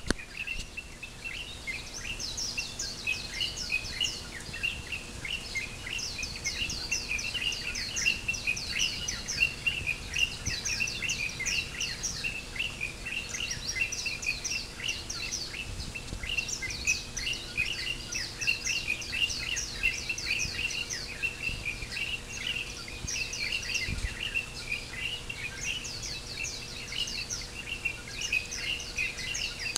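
Pre-dawn chorus of many small birds chirping continuously, overlaid every few seconds by bouts of rapid, high, falling notes.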